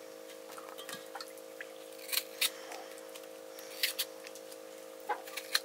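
A few short, sharp scrapes and clicks, coming in pairs, over a steady low hum.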